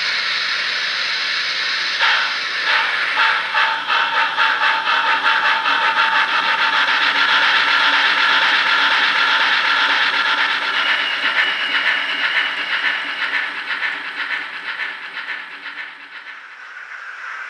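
Steam locomotive sound from a DCC sound decoder (Youchoos GWR Castle sound file on a Zimo MX658) through the model's small speaker: a hiss of steam, then exhaust chuffs from about two seconds in that quicken as the engine gets under way. The sound drops in level near the end.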